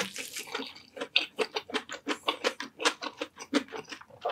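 A person chewing food with the mouth open, making a fast, even run of wet mouth clicks at about six a second.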